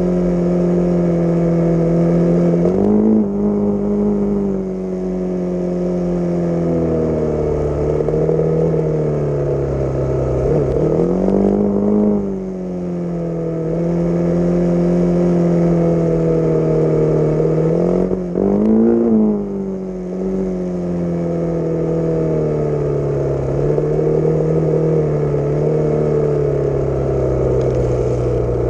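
Honda XR600's single-cylinder four-stroke engine running as the dirt bike rides along a dirt road. The engine note rises and falls with the throttle, with a few short climbs and dips in revs.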